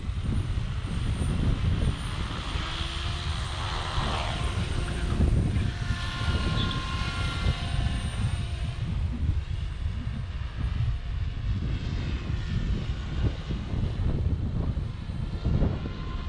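OMPHOBBY M4 Max electric RC helicopter running: motor whine and rotor-blade noise that shifts in pitch, over a heavy, steady rumble of wind on the microphone.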